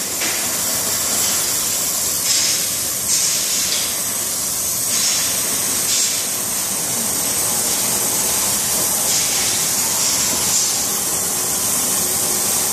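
Gas brazing torch flame hissing steadily on a brass fitting and copper pipe joint, with the high hiss swelling every second or two. This is the preheating stage of silver brazing, holding the heat until the brass and copper glow the same red before the filler rod is fed in.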